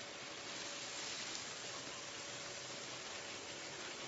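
Grain kernels pouring in a steady stream onto a pile of grain in a machine's bin, a continuous rain-like hiss.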